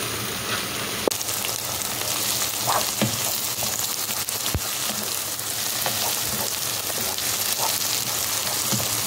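Diced onion and red and green sweet peppers sizzling as they fry in melted beef fat in a pan, stirred with a wooden spoon. A steady hiss, with a sharp tap about a second in and another near the middle.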